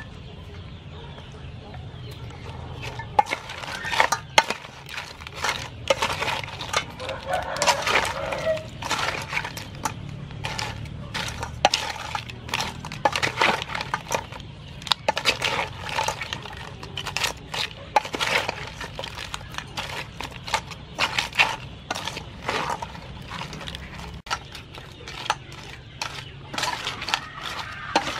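Hands tossing crab pieces and shredded vegetables in a stainless steel bowl: crab shells clicking and clinking against the metal in quick irregular bursts, starting about three seconds in.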